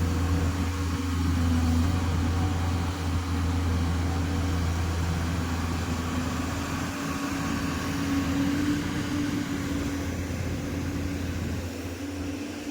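Diesel engine of a heavy earthmoving machine running steadily with a low, even hum.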